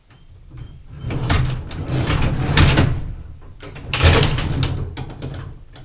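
Sectional garage door moving and rattling in its tracks, with loud clattering surges about a second, two and a half and four seconds in. Its torsion springs are wound with a lot too much tension.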